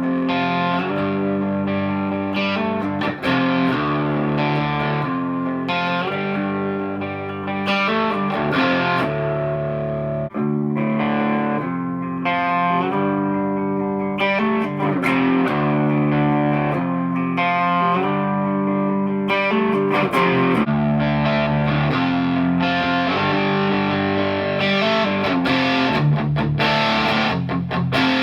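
A G&L Fallout electric guitar played through a 50-watt Boss Katana combo amp with the EQ at noon. Chords are played and let ring, changing every second or two, with quick picked passages between them.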